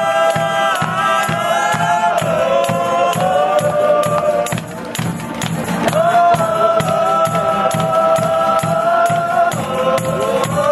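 Men's choir singing a song together with acoustic guitars and a steady percussion beat, holding long notes, with a short break in the singing about halfway through.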